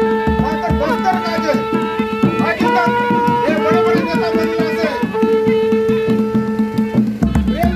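Animal-horn trumpet blown in a run of long held notes, each about one to two seconds, over drumming, as in tribal folk music.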